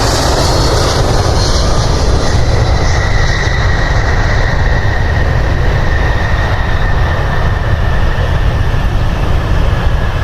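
Jet airliner engines, a steady loud rumble with a high whine that comes in about two seconds in and slowly drops a little in pitch, as the aircraft passes.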